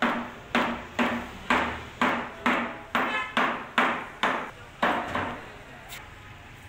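Hammering: about a dozen sharp blows, roughly two a second, each ringing briefly and fading, stopping about five seconds in.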